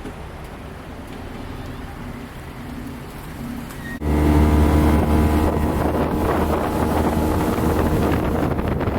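Motorboat engine running, suddenly much louder about four seconds in, with wind buffeting the microphone.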